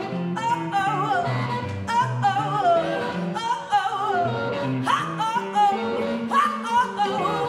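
Live jazz band playing a blues number, with a singer's wavering voice over a bass line that moves in steps.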